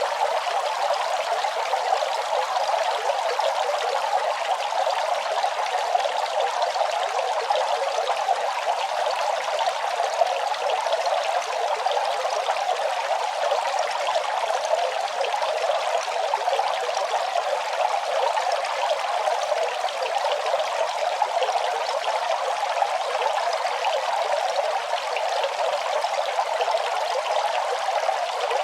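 Running water flowing steadily: an even, unbroken rush with no pauses or changes.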